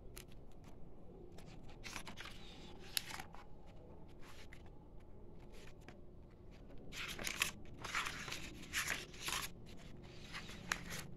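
Faint rustling and crackling of paper as hands open and handle a hardbound comic book, with a busier run of crackles from about seven to nine and a half seconds in.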